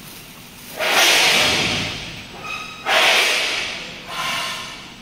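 Plastic stretch film pulled off its roll through the wrapper's film carriage in two long pulls about two seconds apart. Each pull starts as a sudden loud rustling hiss that fades. A brief squeak comes between them.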